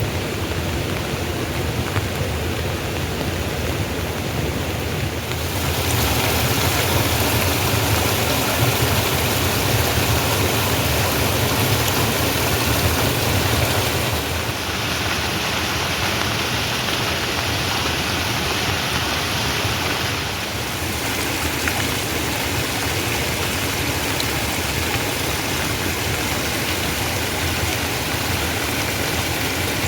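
Steady rain falling, a continuous even hiss that changes tone abruptly a few times.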